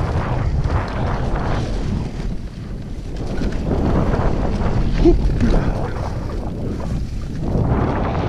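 Wind buffeting the microphone over the rumble and rattle of mountain-bike tyres rolling fast down a dry, leaf-covered dirt trail. The noise swells and eases every few seconds.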